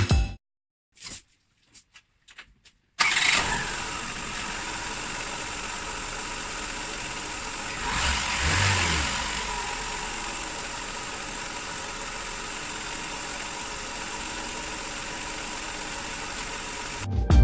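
Ford Ka 1.3-litre four-cylinder petrol engine starting about three seconds in, after a few faint clicks. It revs up briefly in the middle, then settles to a steady idle.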